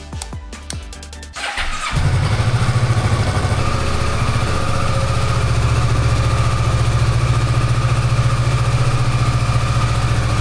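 Kawasaki Versys 650's parallel-twin engine starting about a second and a half in, catching and settling into a steady idle on its first start after a fresh oil change. Music plays before it starts.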